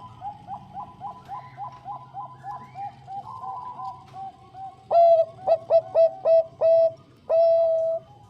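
Zebra dove (perkutut) cooing: a quick run of short notes, about four a second, then louder staccato coos and one longer held coo near the end.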